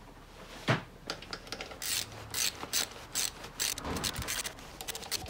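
Socket ratchet wrench clicking in quick, irregular runs as the cylinder-head bolts of an air compressor pump are run down snug.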